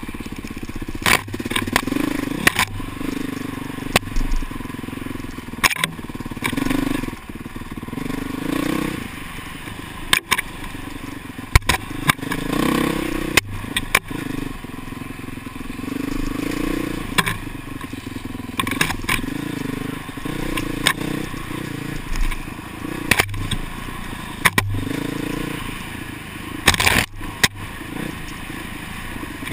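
Dirt bike engine heard from a helmet camera, its revs repeatedly rising and falling with the throttle, with frequent sharp knocks and rattles over the top.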